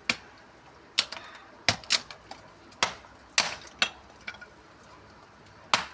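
Dry wooden sticks being snapped and knocked together for a fire: about eight sharp cracks at irregular intervals.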